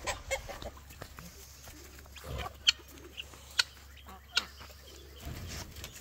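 Chickens clucking, with three short, sharp clucks about a second apart in the middle.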